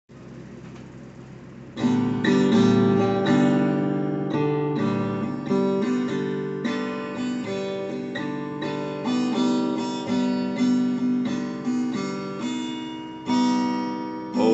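Acoustic guitar strumming chords, each chord struck sharply and left to ring and fade, starting about two seconds in after a faint hiss.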